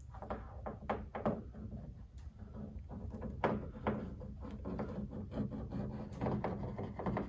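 Irregular small clicks and rubbing from squeezing a tube of 3M black weatherstrip adhesive with gloved hands and running a bead along the metal channel of a car's deck lid, over a low steady hum.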